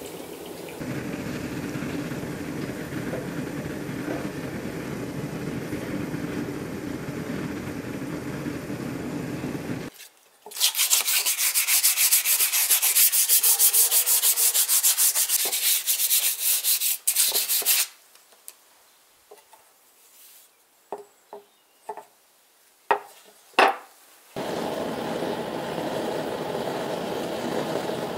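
Fast, loud scrubbing strokes along a freshly quenched sabre blade on a wooden bench, scouring off the scale, for about seven seconds. It comes between stretches of a steady rushing noise: one for the first ten seconds, and another from the glowing forge near the end. A few sharp clicks fall in the quiet gap before the forge.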